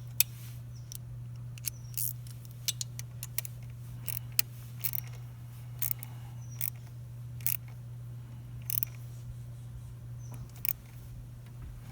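Irregular light clicks and taps of metal tools and motorcycle parts being handled, about fifteen to twenty sharp ticks spread unevenly, over a steady low hum.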